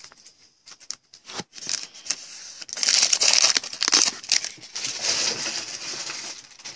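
A trading card pack's wrapper being torn open and crinkled by hand, a dense crackling rustle that builds up about a second and a half in.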